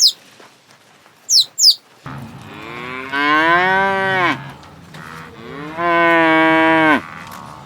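A cow mooing twice, two long calls of about a second and a half each, the pitch falling away at the end of each. Before them come a few short, high, falling chirps.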